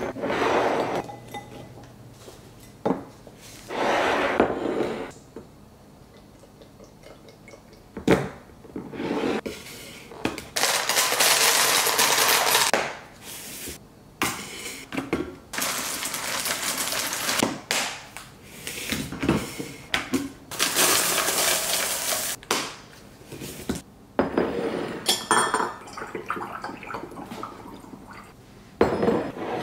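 Glass jars and containers clinking and knocking as they are handled and set down, with dry foods poured into containers in several long rushing pours. Near the end, milk poured through a funnel into a glass swing-top bottle.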